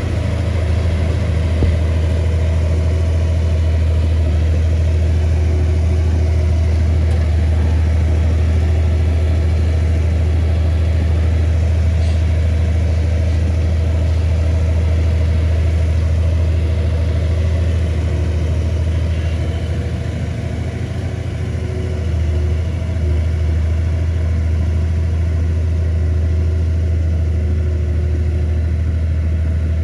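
Komatsu bulldozer's diesel engine running steadily with a low drone, which eases briefly about two-thirds of the way through.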